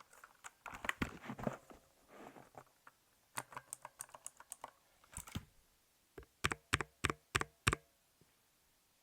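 Mechanical keyboard with clicky blue switches being typed on: a run of irregular keystroke clicks, then about six louder, separate key presses near the end.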